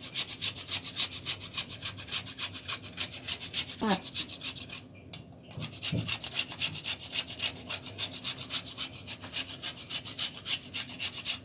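A bar of chocolate grated on a handheld flat metal grater in rapid back-and-forth scraping strokes, with a short break about five seconds in.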